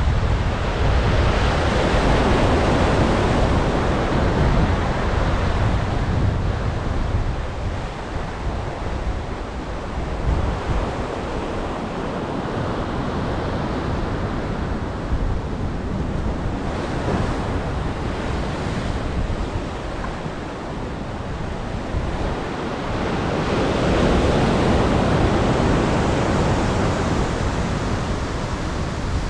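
Ocean surf washing against the shore, swelling louder near the start and again about three-quarters of the way through, with wind buffeting the microphone in a steady low rumble.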